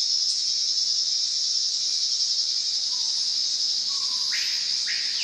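Insect chorus: a dense, steady, high-pitched buzzing drone. Near the end, a few shorter, lower-pitched calls join in.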